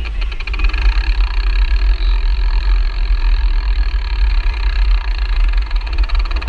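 Bicycle freewheel ratchet buzzing steadily while the bike coasts, a fast run of ticks that blurs into a whine. Under it is heavy wind rumble on the helmet camera's microphone.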